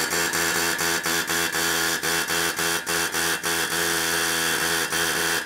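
Pneumatic air hammer hammering rapidly on the end of a Mazda Miata's rear axle shaft in the hub, a continuous rattling with a steady pitched ring. It is trying to drive out an axle shaft that is frozen into the hub and not moving.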